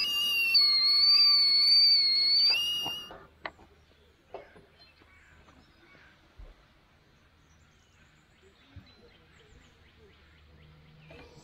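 Kettle whistling at the boil for about three seconds, its pitch wavering slightly, then cutting off. Quiet follows, with a few faint clicks.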